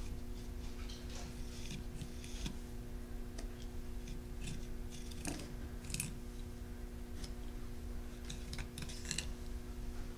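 Scattered small scrapes and clicks of an applicator scooping Textura paste from a jar and dabbing it through plastic mesh netting, over a steady low hum.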